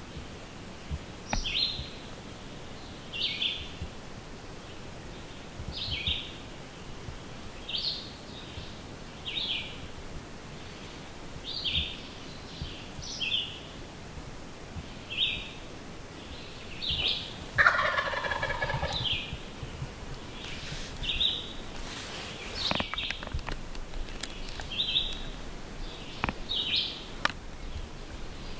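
A wild turkey gobbler gobbles once, about two-thirds of the way through: a rapid rattling call lasting about a second and a half, the loudest sound here. Throughout, a small songbird repeats a short high chirp every second or two.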